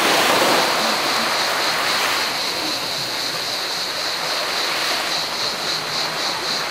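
Small waves breaking and washing in over sand and rock in the shallows, loudest as one breaks at the start, then a softer wash. Behind it, cicadas keep up a steady, high, pulsing buzz.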